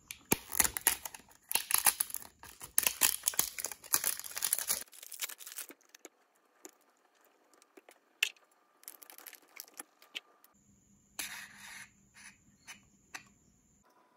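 Plastic crinkling and clicking as a refill ink bottle and a syringe are handled: dense for the first five seconds or so, then scattered clicks, with another short flurry about eleven seconds in.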